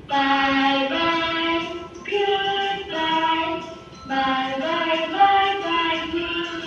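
Music with a singing voice: a simple melody of held notes, each lasting about half a second to a second.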